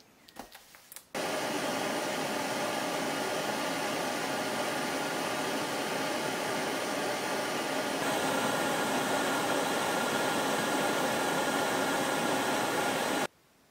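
Screw-on gas canister camping stove burning under a pot: a steady hiss from the burner flame, a little louder after about eight seconds, cutting off suddenly near the end. A few faint clicks of handling come just before it starts.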